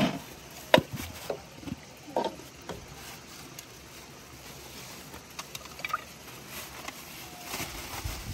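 Water sloshing and splashing, with several sharp knocks and slaps in the first two seconds, then a low steady wash of water with a few faint ticks.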